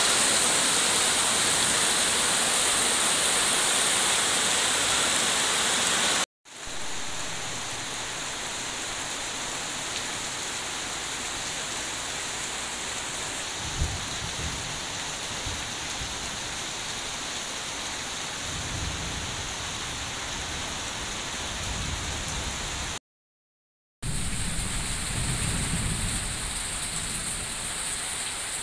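Heavy rain pouring steadily, with low rumbles now and then. The sound breaks off into dead silence briefly about six seconds in and for about a second near the end, where the recording is spliced.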